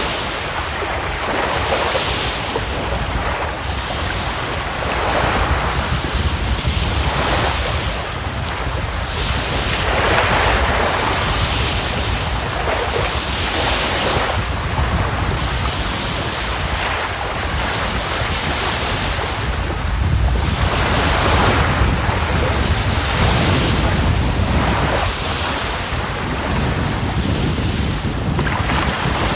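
Baltic Sea waves breaking on the shore in a continuous rush that swells every couple of seconds, with wind buffeting the microphone as a low rumble.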